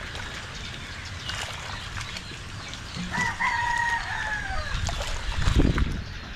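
A rooster crowing once, starting about three seconds in: one long call, nearly three seconds, that holds level and then falls away at the end. A low bump sounds as the crow ends.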